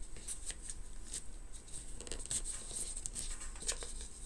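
Soft paper rustling and scratchy handling noises as glued paper is folded and pressed down over the rim of a small round box lid: a scatter of light crinkles and taps.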